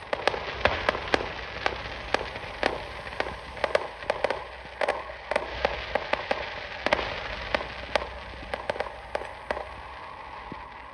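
Fireworks display going off: an irregular, rapid run of sharp bangs and pops, several a second, thinning out near the end.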